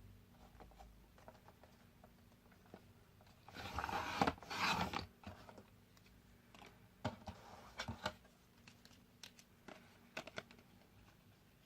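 Card being cut to size: one scraping cut lasting about a second and a half, about three and a half seconds in, then a few small clicks and taps as the card is handled.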